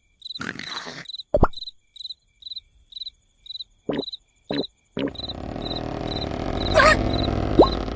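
Cartoon soundtrack with a cricket chirping steadily, about two chirps a second, broken by a few short, sudden sound effects. About five seconds in, a louder, dense noise comes in under the chirping, with a brief rising whistle-like glide near the end.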